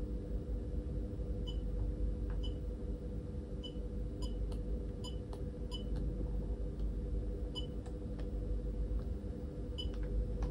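Short, high electronic beeps from a hotel room TV's on-screen menu system, sounding at irregular intervals as the cursor is stepped through the menus with the remote. A steady low hum runs underneath.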